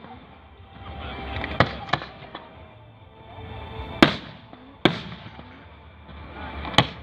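Aerial firework shells bursting in a series of five sharp bangs: two close together about a second and a half in, the loudest about four seconds in, another a moment later, and one near the end.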